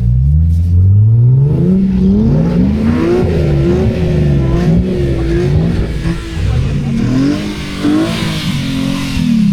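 Car engine revving up and down again and again, its pitch climbing and dropping in repeated sweeps, with a short hiss about eight seconds in.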